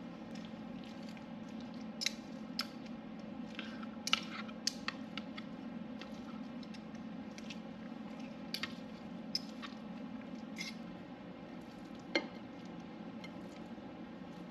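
A utensil working a wet mixture in a bowl: soft squishing with scattered sharp clicks and taps, over a steady low hum.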